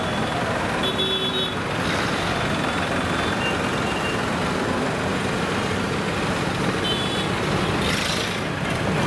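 Motor vehicle traffic: engines running steadily on a busy road, with short high electronic beeps twice.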